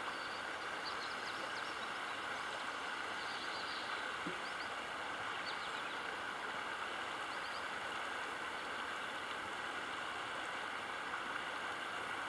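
Floodwater running steadily across a gravel road, an even rushing hiss with no breaks. A few faint high chirps sound over it.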